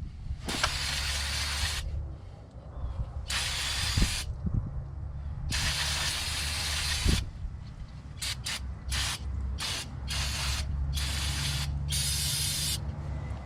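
Pressurised spray hissing in bursts: three longer bursts, then a run of short quick ones and a last longer burst, over a low steady hum with a few knocks.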